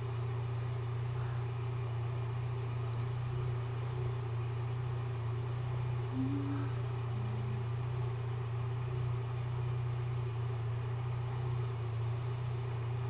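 Steady low hum under a faint, even hiss.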